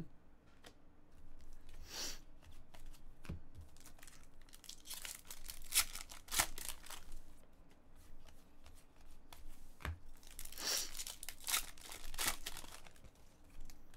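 Foil trading-card pack being torn open by hand and the wrapper crinkled, in several bursts of tearing and crinkling with small clicks between.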